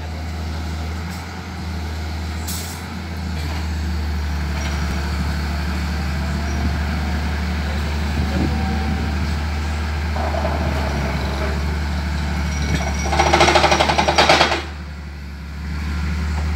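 Excavator-mounted vibratory pile driver, with the excavator's engine running, driving a pole into the ground with a steady low drone. About 13 seconds in comes a loud, rapid rattling for about a second and a half, the loudest part, after which the drone eases briefly and comes back.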